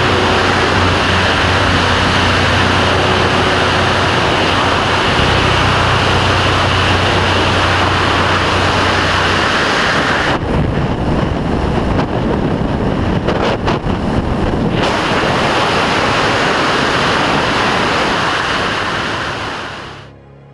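Freefall wind rushing over an action camera's microphone in a tandem skydive: a loud, steady rush, duller and gustier for a few seconds around the middle, fading out near the end.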